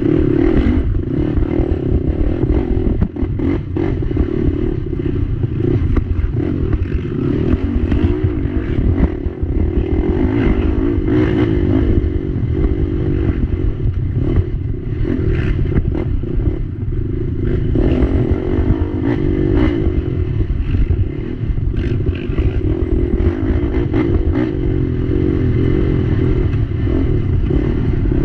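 Race ATV's engine running hard under the on-board camera, with frequent knocks and rattles from the machine bouncing over a rough dirt trail.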